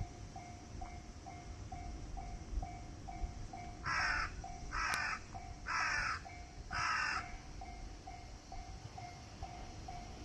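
Japanese level-crossing warning bell ringing steadily, about two strikes a second. A crow caws four times, about a second apart, midway through, louder than the bell.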